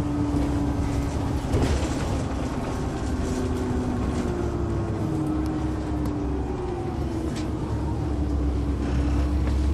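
Caterpillar C13 ACERT inline-six diesel of a NABI 40-foot transit bus running under way, heard from the rear of the cabin: a steady low rumble with a humming engine tone that climbs about three seconds in and then sinks slowly. The exhaust is loud, which the owner likens to a hole in the muffler.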